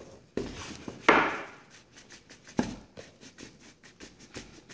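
Black cardboard presentation box being handled and turned over on a wooden table: card rubbing and scraping, with a few soft knocks, the loudest about a second in.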